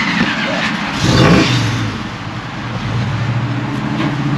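A car engine revs up briefly about a second in, then runs at a steady idle.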